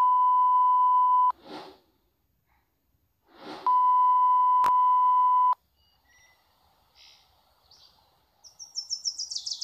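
Steady 1 kHz test-tone beep of a TV colour-bar intro, sounding twice for under two seconds each, with a short static swoosh before the second beep and a click partway through it. After that, faint birds chirping, ending in a quick run of high chirps.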